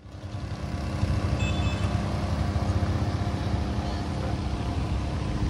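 Town street ambience fading in: a steady low rumble of traffic with a faint steady hum, murmur of voices, and a brief high chirp about a second and a half in.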